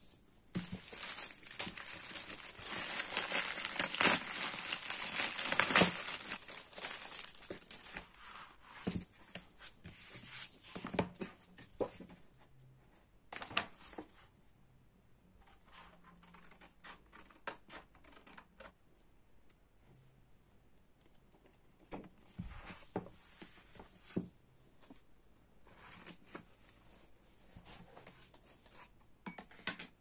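A paper magazine being unwrapped and handled: loud crinkling and tearing for the first several seconds. After that come quieter page rustles and scissors cutting paper, and more rustling near the end.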